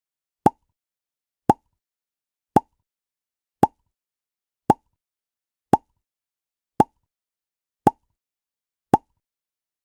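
A short, cartoon-style 'pop' sound effect (뽁) repeated nine times, about once a second, with silence between each pop.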